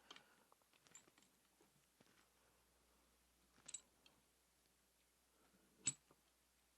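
Faint, sparse clicks and light metal knocks of transmission gears and shafts being handled and fitted into a motorcycle crankcase, with a small cluster of clicks about halfway and one sharper knock near the end.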